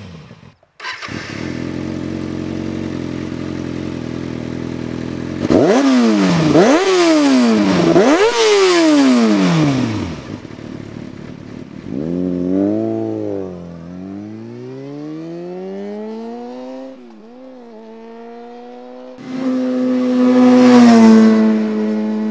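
A 2007 Kawasaki ZX-6R's inline-four running through a de-catted Akrapovic slip-on exhaust. It idles steadily, then gets three quick throttle blips that rise and fall sharply, then slower rises and falls in revs, and near the end holds a higher steady note.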